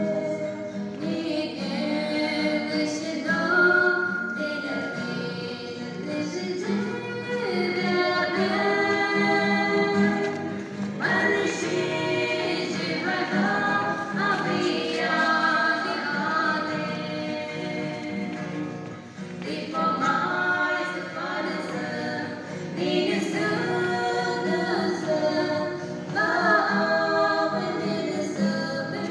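Three women singing a hymn together in harmony, accompanied by a strummed acoustic guitar.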